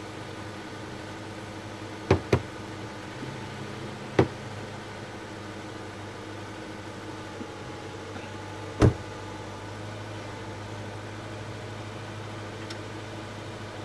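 Car engine running steadily at idle with a low hum, broken by sharp knocks: two in quick succession about 2 seconds in, another about 4 seconds in, and the loudest near 9 seconds.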